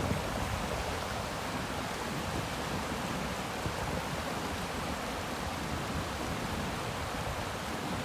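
River rapids and a large waterfall rushing steadily, an even wash of water noise.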